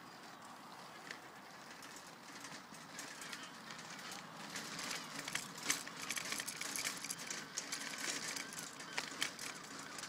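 Footsteps and scuffs on car park tarmac: irregular short clicks that start about three seconds in and grow louder, over a faint steady outdoor background.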